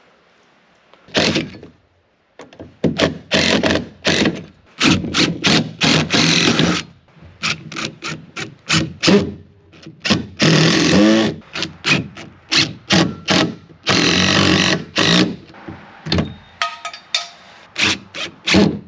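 Power drill driving screws into a mount, in many short trigger bursts broken by several longer runs of about a second each.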